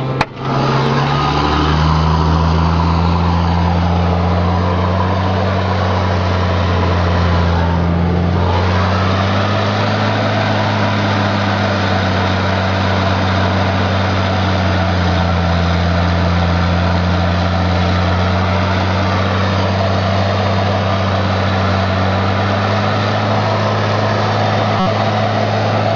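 John Deere 7700 tractor's six-cylinder diesel engine running steadily under load, driving a rotary power harrow, heard from inside the cab. The engine note rises about a second in after a sharp click at the very start, then holds fairly even.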